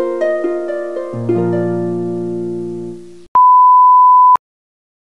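Logo intro jingle: a run of rising plucked harp-like notes that ring and fade over about three seconds, followed by a loud, steady, single-pitch beep about a second long.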